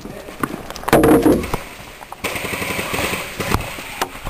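Airsoft guns firing during close-quarters play: sharp single shots, and a rapid full-auto burst of BBs going off from a little past two seconds in to about three and a half seconds.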